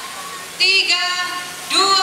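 A high-pitched voice singing held notes, a little over a second apart.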